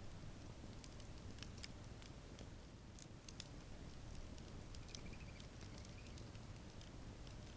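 Wood campfire crackling faintly: sparse, irregular sharp snaps and pops over a steady low background rumble.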